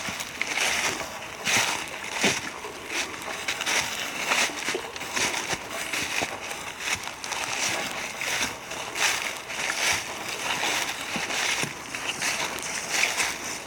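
Footsteps through dry fallen leaves on a forest trail, each step a crunching rustle, at a steady walking pace of about three steps every two seconds.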